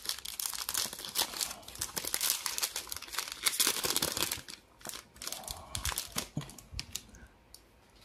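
Plastic wrapper of a 2023 Bowman Baseball trading-card pack being torn open and crinkled by hand. Dense crackling through the first five seconds, then softer rustling that dies away near the end.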